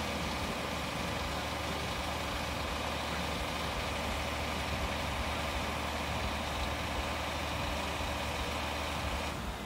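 Fire truck engine idling steadily under the raised aerial platform: a constant low hum with a steady whine above it. It cuts off abruptly near the end.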